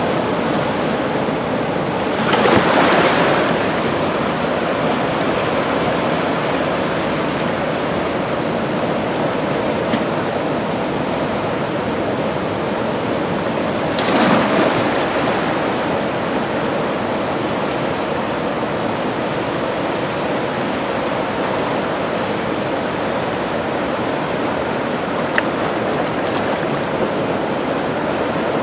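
Zambezi whitewater churning in the Boiling Pot below Victoria Falls: a steady, loud rush of turbulent water. There are two brief louder swells, about three seconds in and again about halfway through.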